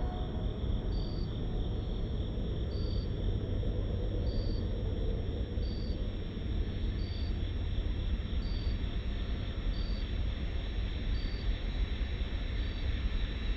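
Crickets trilling steadily, with a short high chirp repeating about every second and a half, over a low steady rumble from the distant approaching train.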